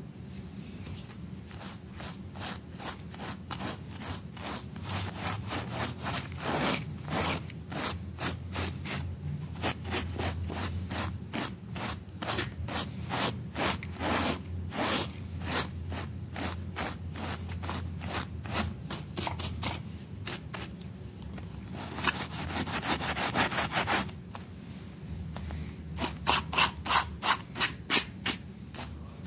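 Stiff-bristled scrub brush scrubbing a wet, soapy rug in quick back-and-forth strokes, a steady rhythmic rasping. Past the middle the strokes run together into a continuous scrub for a couple of seconds, and near the end a few harder, louder strokes follow.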